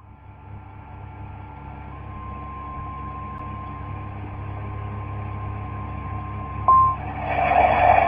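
NOAA Weather Radio warning alarm tone: a steady, single-pitch beep near 1 kHz under a low hum and a hiss that slowly grows louder, with a higher second tone for the first two seconds. The tone flares louder for a moment near the end and then gives way to radio noise. It signals that a warning message is about to follow.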